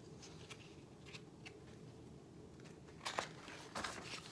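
Faint room tone, then a picture book's paper page rustling and crackling as it is turned, a few short crackles about three seconds in.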